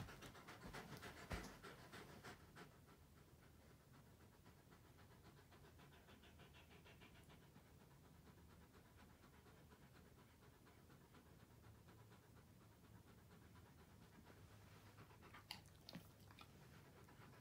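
A wolfdog panting quickly and faintly, a little louder in the first couple of seconds. A couple of faint clicks near the end.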